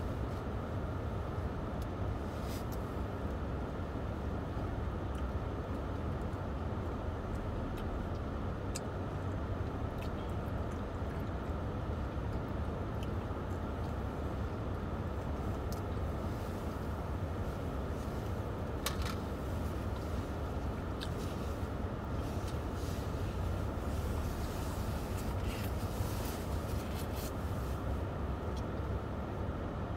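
Steady low rumble and hiss of a car cabin with the engine running while stationary, with a few faint clicks and taps from eating.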